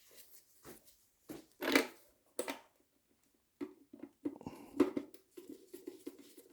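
Scattered clicks and knocks from a screwdriver and hands working on a motorcycle's plastic headlight casing and its screws, turning into a quicker run of small ticks and rattles in the second half.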